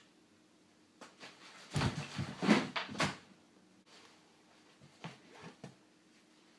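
Handling noise: a quick run of rustles and knocks, the loudest two about a second apart, then a few faint taps near the end.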